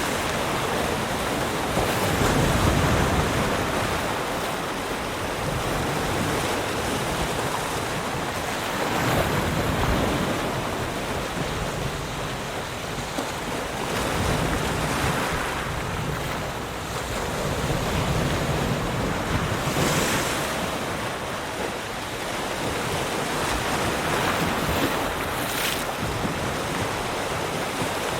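Sea waves breaking and washing on a shore, the surf swelling and ebbing every few seconds, with wind in the background.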